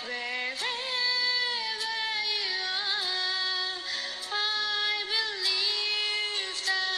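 Music with a high female singing voice holding long notes and sliding between them, with a slight waver on the held notes.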